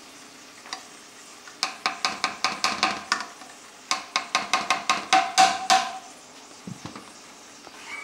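Metal slotted spatula clinking against a large aluminium cooking pot as cooked pulao rice is turned over: two runs of quick, ringing clinks, about six a second, with a short pause between, over a faint steady hiss.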